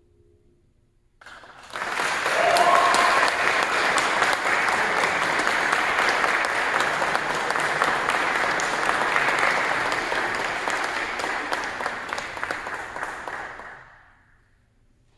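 Audience applauding, breaking out about a second in and dying away near the end.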